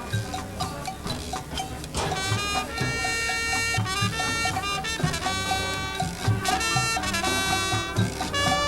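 High school marching band playing a jazz-Latin show tune: drums and percussion hits at first, then the brass and woodwinds come in about two seconds in with loud sustained chords.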